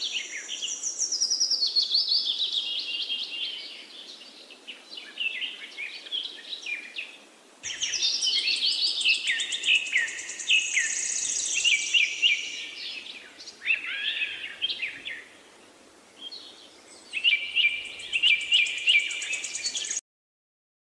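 Several birds singing and chirping in quick, overlapping phrases, with quieter spells between bursts; the sound cuts off abruptly about a second before the end.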